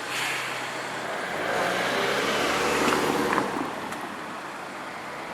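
A motor vehicle passing close by: engine and tyre noise that grows to a peak about three seconds in and then fades.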